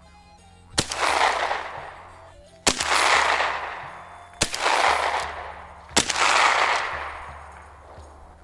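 Four gunshots about two seconds apart, each a sharp crack followed by a long rolling echo that fades over a second or more.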